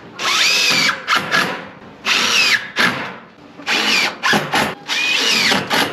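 Cordless drill driving screws through corrugated metal sheeting into a wooden frame: three long runs of motor whine that climbs and dips in pitch, with short trigger blips between them.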